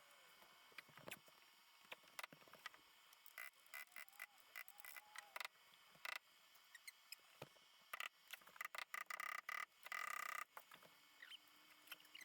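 Faint, scattered clicks, clinks and short squeaks of hand tools and metal parts being handled while fitting car suspension, with a denser run of clicks and a brief squeal about eight to ten seconds in.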